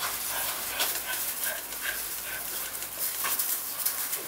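American bully puppies giving a string of short, high-pitched cries, over the crunch of paws and feet on gravel.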